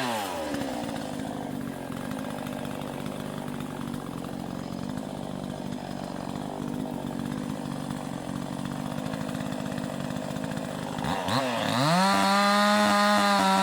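Vevor chainsaw engine drops from high revs to idle right at the start and idles steadily. About eleven seconds in it is revved back up and held at a steady high pitch.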